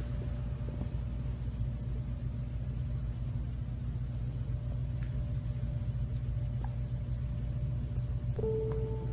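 A steady low rumble with a faint, even hum over it.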